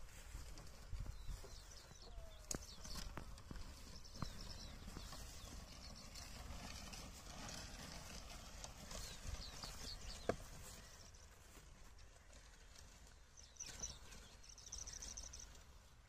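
A pair of bullocks walking as they pull a wooden plough through dry, clodded soil: faint scattered footfalls and scuffs over a low steady rumble.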